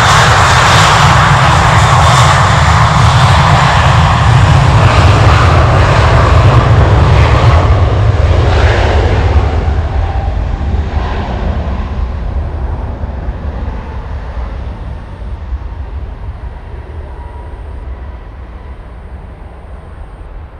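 Airbus A320 jet engines at takeoff thrust during the takeoff run. The sound is loud for the first half as the airliner rolls past, then fades steadily as it accelerates away down the runway.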